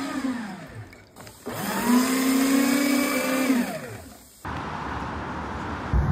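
A man's voice making two long wordless sung tones, each rising and then falling in pitch. About four seconds in it cuts abruptly to a steady hiss.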